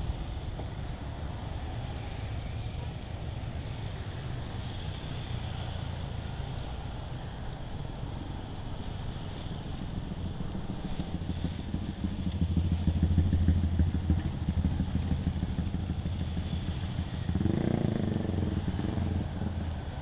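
Small motorcycles and cars passing on a road, a steady engine drone that grows louder about twelve seconds in. Near the end another engine comes close.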